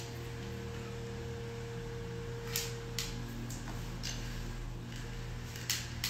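Steady low hum of room noise with a few soft clicks in the second half, from handling a Bed Head hair crimper.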